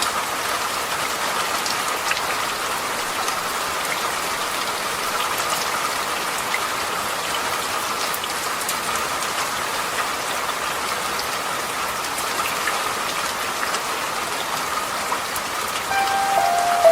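Steady rain falling, an even hiss with scattered faint drop ticks. Soft music notes come in near the end.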